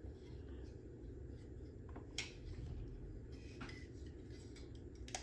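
A few light, scattered clicks and taps of batteries and the plastic battery compartment of a toy robot being handled, over a steady low hum.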